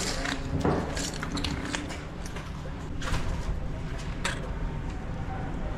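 Low rumble of wind buffeting the microphone, with a few faint clicks or knocks scattered through it, under a second in, about three seconds in and a little after four seconds in.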